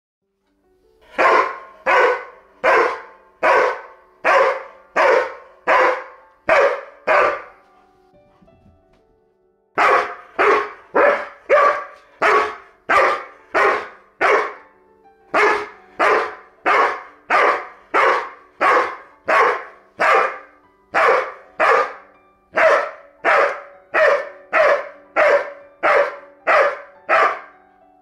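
Goldendoodle dog barking in a steady run of single barks, about one every three-quarters of a second, breaking off for about two seconds after the first eight barks and then carrying on at the same pace.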